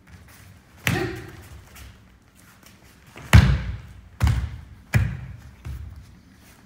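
Bodies landing on foam floor mats in martial-arts throws and break falls: a series of about five sharp thuds, the loudest about three and a half seconds in.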